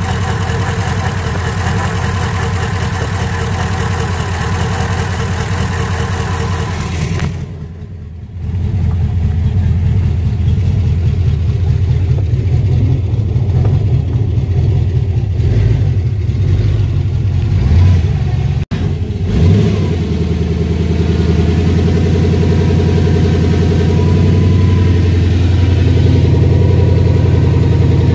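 Freshly rebuilt car engine with a chrome-topped four-barrel carburettor, running on its first start after the rebuild. It idles steadily under the open hood, then is heard from inside the cabin, with a short drop-out about seven seconds in and a slight rise in engine speed near the end.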